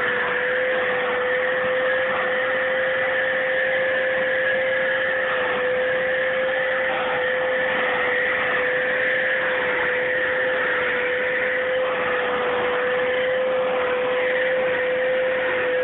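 Vacuum cleaner running steadily: a constant motor whine at one pitch over a rushing hiss of air.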